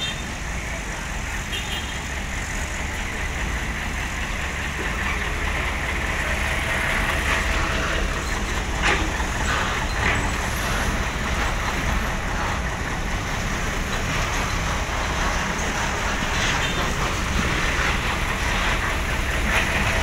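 Heavy diesel engines running steadily, a dump truck and a tracked excavator at work, with road traffic passing. A few short knocks come about nine to ten seconds in.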